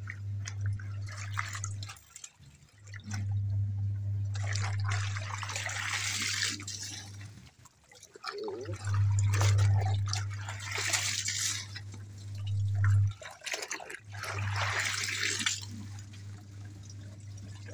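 Wet, soapy fabric being lifted and wrung in a plastic basin of water, with splashing and dripping that come in three bursts. Under it runs a steady low hum that cuts out for about a second every four to five seconds.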